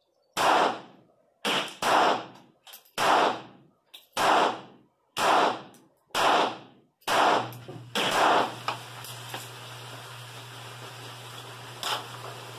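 A .25 ACP pocket pistol fired nine times at about one shot a second, each a sharp crack with a short echo. The firing stops about eight seconds in, leaving a faint steady low hum.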